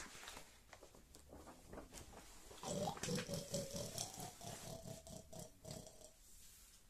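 Pig-like oinking: a quick run of short grunts, about five a second, from about two and a half to six seconds in.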